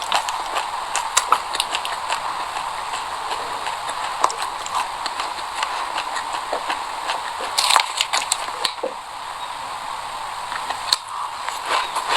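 Close-miked chewing of sesame seeds: a dense, irregular run of small crunchy clicks, with a louder cluster about eight seconds in.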